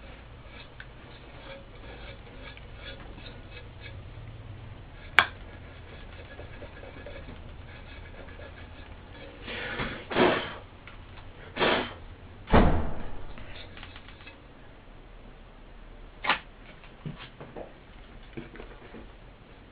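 Handling noise from work on a woofer: light clicks and rubbing as parts are handled on the speaker's frame, a sharp click about five seconds in, a burst of louder scraping and a low thump in the middle, and another knock near the end.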